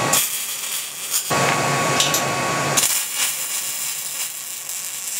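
Electric arc welding a steel handlebar tube onto a steel air tank: the arc hissing and sizzling, with a short lull about a quarter of a second in.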